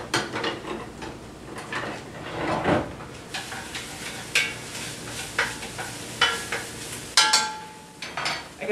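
Metal cutlery rattling in a drawer, then a utensil stirring and knocking against a pot of onions sizzling on the stove. A sharp clank with a short metallic ring comes about seven seconds in.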